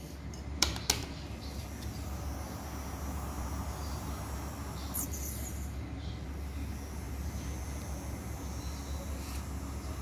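Two sharp clicks about half a second in, then the small battery-powered motor and plastic fan of a homemade toy vacuum cleaner running with a steady whirr.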